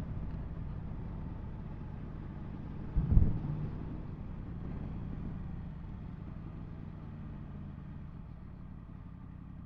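Yamaha MT-10 SP's crossplane inline-four engine running at low revs under way, with road and wind noise. A brief low thump comes about three seconds in.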